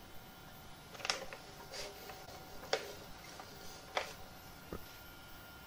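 Scattered light clicks and short scrapes, about five in a few seconds, from hand-levelling a 3D printer's bed, over the faint steady hum of the printer.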